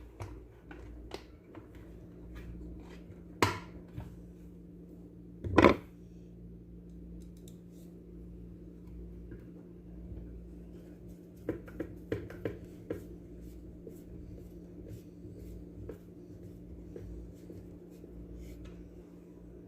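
Light clicks, taps and scrapes of plastic blender housing parts and screws being handled and fitted during reassembly, with two louder knocks a few seconds in and a quick run of clicks about halfway through, over a steady low hum.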